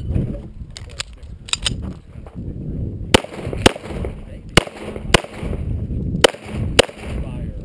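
9mm EAA/Tanfoglio Witness Match pistol firing six shots as three quick pairs. The shots within a pair are about half a second apart and begin about three seconds in. Before the shots come a few light clicks as the pistol and magazine are picked up off a barrel top.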